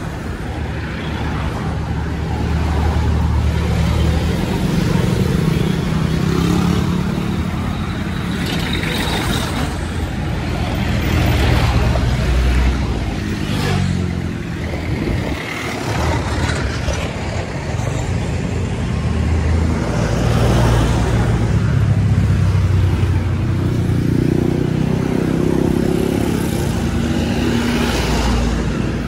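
Road traffic passing close by: cars, jeepneys, motorcycles and a minibus, each engine swelling and fading as it goes past, over a steady low rumble.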